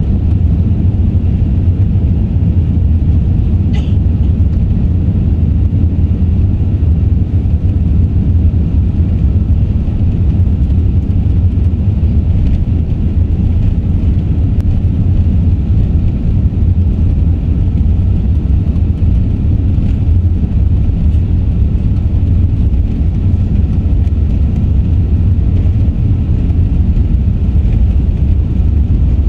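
Steady low rumble inside the cabin of an Airbus A380 taxiing on the ground, from the engines at low taxi thrust and the airframe rolling along the taxiway.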